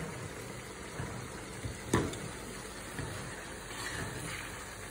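Pot of chicken broth simmering on the stove: a steady bubbling hiss, with one sharp knock about two seconds in.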